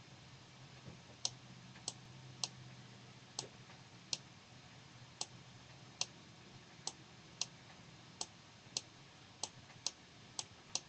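About fifteen faint, sharp computer clicks at uneven spacing of half a second to a second, starting about a second in, as the on-screen page is moved along. A faint low hum lies under the first half.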